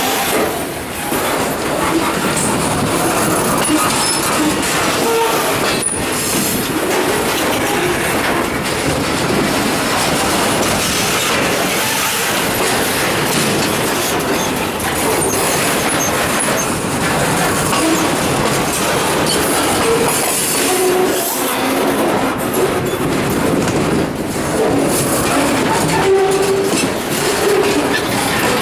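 Train wheels rolling over rough, badly maintained jointed track, clacking over the rail joints with short, scattered squeals.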